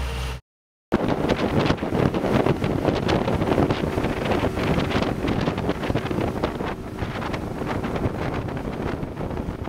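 Wind buffeting the microphone aboard a small motorboat under way, a dense steady rush with gusty spikes, after a half-second dropout near the start.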